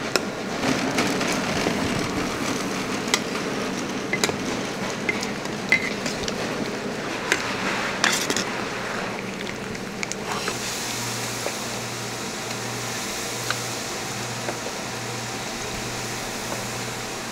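A metal ladle stirs and scrapes through a large pan of simmering tteokbokki sauce, with scattered clinks against the pan. About ten seconds in, this gives way to deep-fryer oil sizzling steadily as battered food fries, over a low hum that pulses a little more than once a second.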